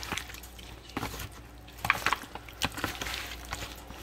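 A gloved hand squishing raw chicken wings through a wet egg-and-seasoning coating in an aluminum foil pan: irregular wet squelching, with a few sharper clicks about a second apart.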